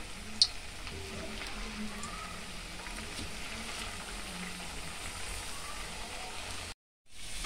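Potato chunks frying in hot oil in a wok: a steady sizzle and bubbling of the oil. It breaks off for a moment near the end.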